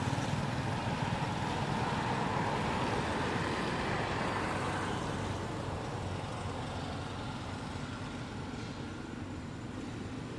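Steady outdoor traffic noise, with a vehicle passing that swells over the first few seconds and fades by about the middle.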